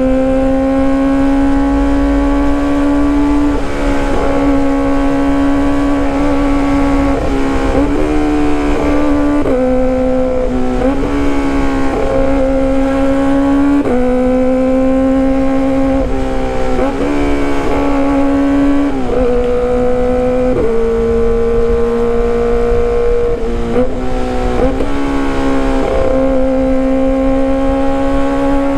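Kawasaki ZX-25RR inline-four motorcycle engine running at high revs through a loud aftermarket exhaust while being ridden. It holds a steady high pitch, then steps up or down to a new pitch every few seconds as the throttle and gears change.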